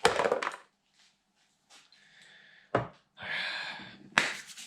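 Hand tools on metal while the last oil pan bolt is undone: a clatter, a single sharp knock a little before the three-second mark, a short rasping stretch, then a sharp click.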